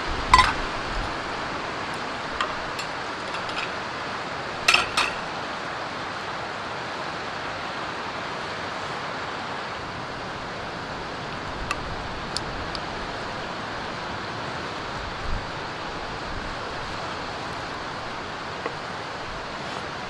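Metal bowl and chopsticks clinking as they are set down on a wooden board, twice, followed by a few faint small clicks and taps. Underneath runs a steady rushing background.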